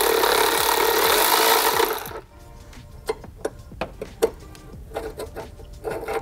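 Cordless power driver with a socket spinning a nut down onto a battery tie-down bolt, running steadily for about two seconds and then stopping. After it, a series of light clicks and taps as the small metal box is handled.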